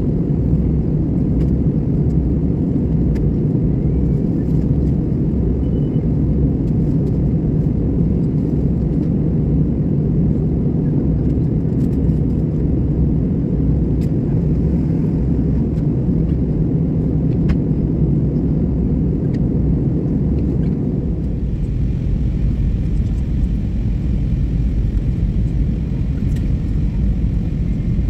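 Steady rumble of an airliner in flight heard from inside the passenger cabin: engine and airflow noise during the descent. About twenty seconds in, the rumble shifts lower and heavier.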